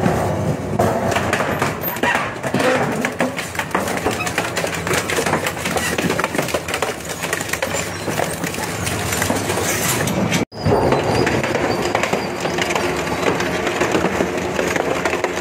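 Twin-shaft shredder's cutter discs crushing and tearing a steel drum: continuous metallic crunching and grinding, thick with sharp cracks. The sound cuts out for an instant about ten and a half seconds in, then carries on.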